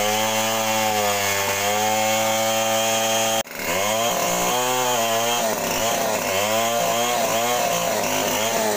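Two-stroke chainsaw running. Its pitch holds steady, cuts off for an instant about three and a half seconds in, then rises and falls repeatedly as the engine comes under load.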